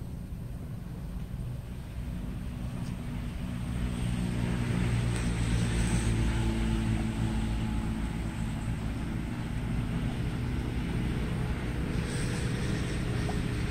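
Low, steady drone of a distant engine with a pitched hum, swelling about four seconds in and holding.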